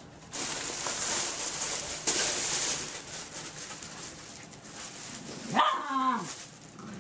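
Puppy scrambling in a fabric play tunnel, rustling for the first few seconds, then a short puppy bark with a falling pitch near the end.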